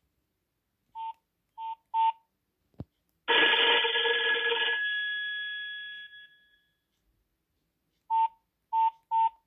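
Xiaomi Bluetooth speaker playing a ringtone-like phone sound: three short beeps, then a loud ringing chord about three seconds in that fades away over a few seconds, then three more short beeps near the end.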